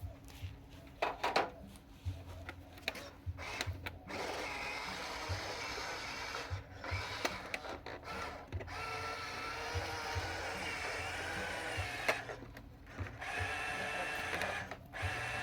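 Small electric gear motors of a Huina radio-controlled construction toy whirring in stretches, a steady whine that shifts slightly in pitch. The whine comes after a few seconds of light clicks and knocks, and breaks off briefly about three quarters of the way through.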